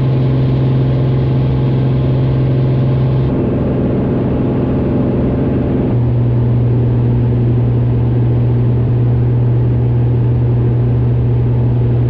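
Single-engine piston airplane's engine and propeller droning steadily, heard inside the cabin. The drone's pitch wavers about three seconds in and settles slightly lower about six seconds in.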